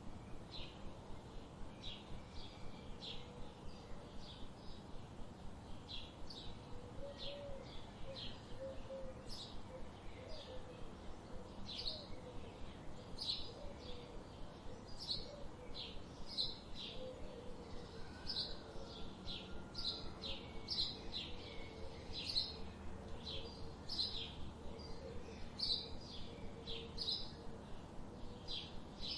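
Birds chirping: an unbroken run of short, high chirps, about two a second, with a fainter, lower warbling call joining in several seconds in.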